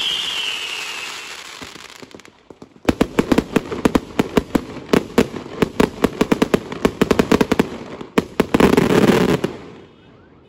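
Aerial fireworks display. A high whistling hiss fades out over the first second or two. From about three seconds in comes a rapid barrage of sharp bangs, several a second, ending in a dense burst of crackling near the end before dying away.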